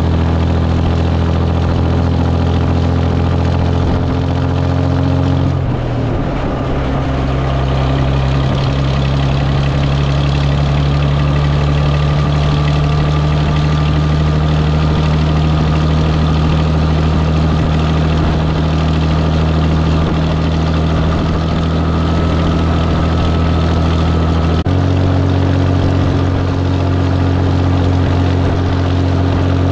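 Diesel engine of a 260 Brockway truck running on the road, heard through its twin vertical exhaust stacks. Its note steps up in pitch about six seconds in and drops back down about 25 seconds in.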